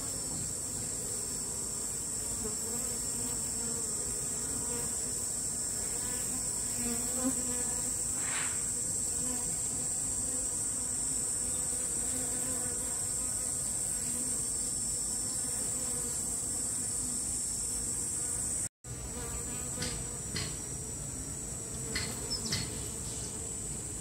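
A swarm of honeybees buzzing in a dense, steady hum as it clusters on and moves into a wooden hive box, with a steady high-pitched whine above it. The sound cuts out for an instant about three-quarters of the way through, and a few faint clicks follow.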